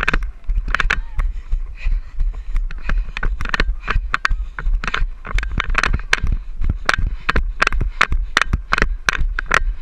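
A runner's footfalls on pavement, with a body-worn GoPro action camera knocking at each stride, about three sharp thumps a second, over a low wind rumble on the microphone.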